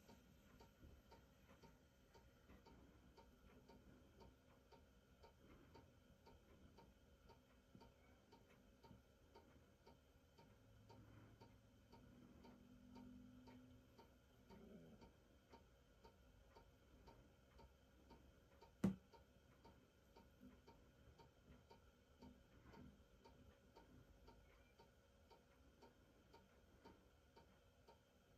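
Near silence, with faint, steady, evenly spaced ticking and a single sharp click about two-thirds of the way through.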